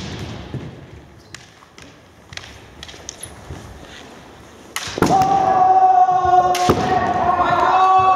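Kendo fencers' bamboo shinai giving scattered light taps, then about five seconds in the fencers let out long, held kiai shouts on a steady pitch, more than one voice overlapping.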